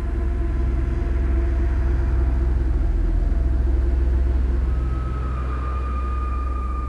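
Horror-film sound-design drone: a deep, steady rumble with held eerie tones above it, swelling and then easing, with a new higher tone coming in about two-thirds of the way through.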